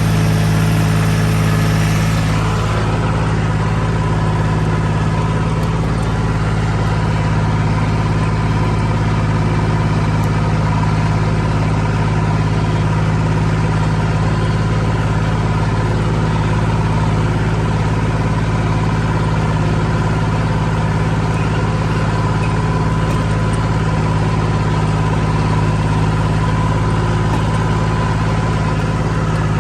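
Engine of a trail-scraping machine running steadily at an even speed, with an added hiss that fades about two seconds in.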